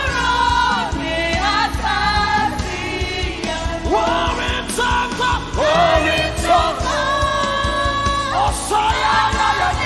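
Live gospel worship music: a lead singer and backing vocalists singing over a band with a steady beat.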